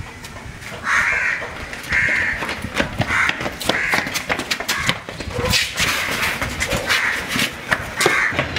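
A crow cawing over and over, about seven harsh caws roughly a second apart, over a scatter of short sharp knocks and running footfalls.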